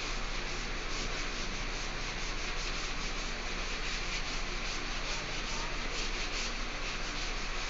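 Chalk being wiped off a blackboard with a duster: a run of quick rubbing strokes.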